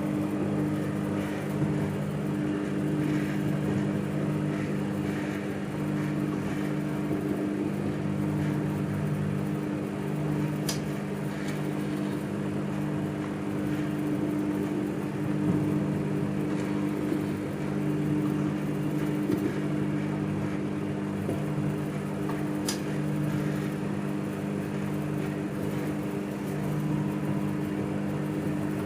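Microwave oven running: a steady hum and whir, with a couple of faint ticks along the way.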